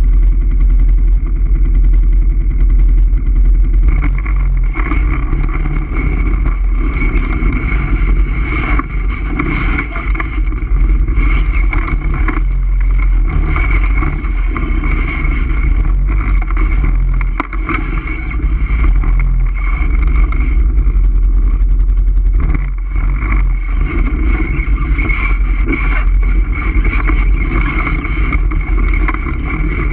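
All-terrain vehicle (ATV) engine running under way, with a heavy, steady low rumble and small rises and falls in loudness.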